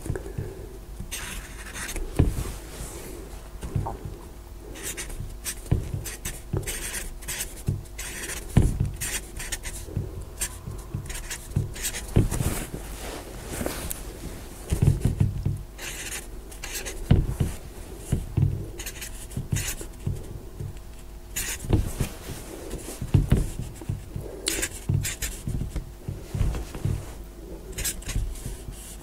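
Marker pen writing on a wall board: short, irregular scratches and taps of the felt tip, several a second, as digits are written one after another, over a faint steady hum.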